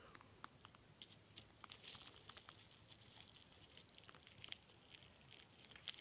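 Faint, scattered crackling of dry pine needles and twigs on a mossy forest floor, with one sharper click near the end.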